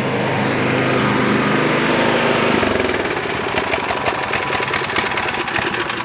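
Craftsman Quiet Technology snow blower's 208cc single-cylinder overhead-valve engine running steadily close up, growing louder over the first second as the microphone comes up to it. Its note shifts about halfway through.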